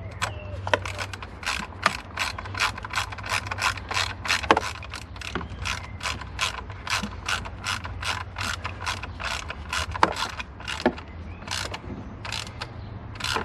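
Hand ratchet clicking steadily, about three or four clicks a second, as it runs down the screws holding a new crankcase vent valve onto the valve cover. It pauses briefly near the end, then starts again.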